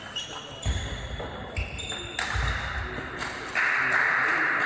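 A table tennis rally: the celluloid ball clicking off rubber bats and the table in quick succession, with short high squeaks of shoes on the sports-hall floor and a few low thuds of footwork. Near the end a louder, steady rushing noise takes over.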